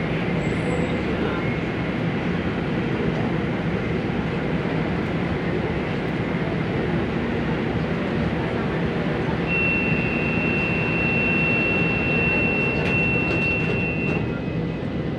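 Metro train carriage running, heard from inside: a steady rumble of wheels and running gear. About ten seconds in, a thin, steady, high-pitched whine joins for roughly four seconds, then stops.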